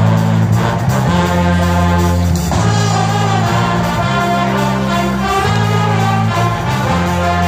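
Pep band of trumpets, trombones, saxophones and sousaphones playing live. A strong low brass line holds each note for about a second before moving to the next.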